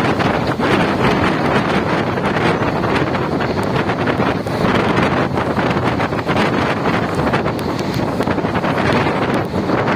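Wind buffeting the microphone over the steady rumble and rattle of a moving passenger train, recorded from on board.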